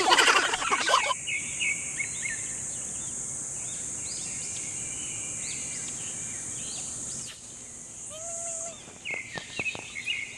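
Steady high-pitched insect drone with scattered bird chirps, after a loud rough burst in the first second. Near the end the drone stops, and a short pitched call and a few clicks are heard.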